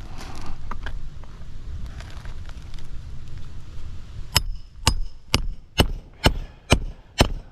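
Hammer blows during shingle repair work: eight sharp strikes about two a second, beginning a little past halfway. Before them there is only a low rumble.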